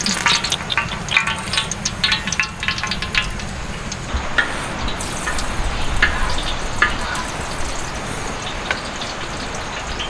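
Oil sizzling and crackling in a large wok over a wood fire, stirred with a wooden spatula. Dense crackling in the first few seconds thins to scattered pops.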